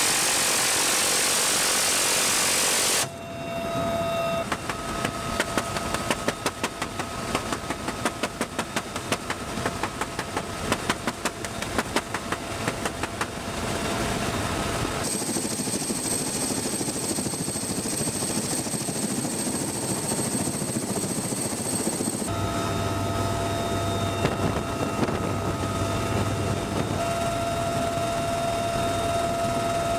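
A helicopter door minigun fires one continuous burst that cuts off sharply about three seconds in. Over the UH-1Y Venom's steady turbine and rotor drone, a .50-calibre door gun then fires rapid repeated shots for several seconds, after which only the helicopter's drone continues.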